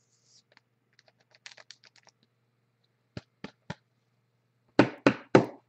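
Light clicks and taps of a plastic top loader and trading card being handled, then three louder knocks near the end, a third of a second apart.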